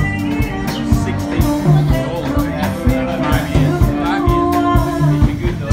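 Live band music: guitar and a singing voice over a steady bass and drum beat.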